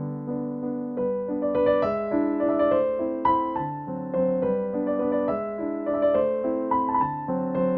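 Background music: a gentle piano or electric-piano tune of short, evenly paced notes over sustained lower chords.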